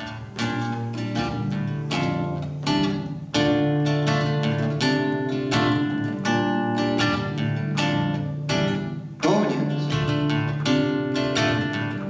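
Acoustic guitar playing an instrumental introduction to a song: picked chord notes over a held bass, with stronger strummed chords about three and nine seconds in.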